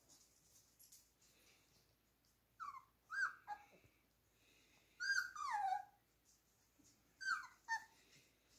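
Four-week-old beagle puppies whining and yelping as they wrestle: short high squeals that slide down in pitch, in three clusters, the longest a drawn-out falling whine about halfway through.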